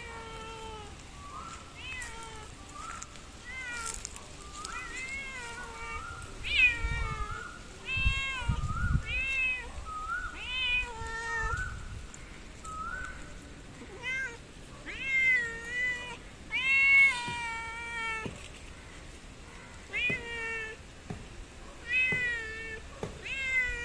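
Cat meowing over and over, short calls about one a second, each rising then falling in pitch, with a couple of brief pauses.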